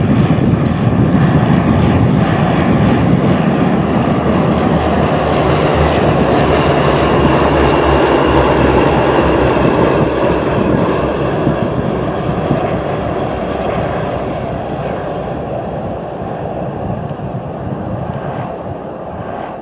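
Light propeller aeroplane's engine running steadily, loud at first and slowly fading over the second half.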